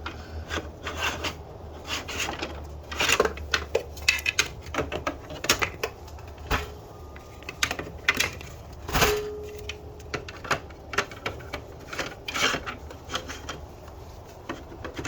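Irregular clicks, taps and knocks of a saw accessory being handled and pushed into its onboard storage clip on a portable table saw, tried one way and then turned around until it locks in.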